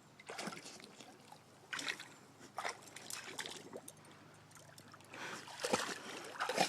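A dog wading in water, splashing and sloshing in irregular bursts, the loudest near the end.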